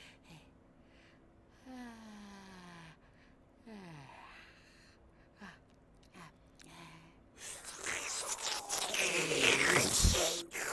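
A few soft, falling sighing tones, then about seven seconds in the whirring, rushing vacuum-cleaner noise of a cartoon toy vacuum cleaner comes in and swells loud near the end.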